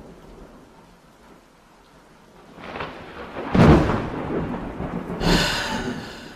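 Thunderstorm: rain falling steadily with two loud rolls of thunder, the first about three and a half seconds in and the second about five seconds in.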